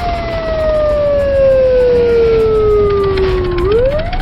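Siren wailing: one long tone that slowly falls in pitch, then sweeps quickly back up near the end.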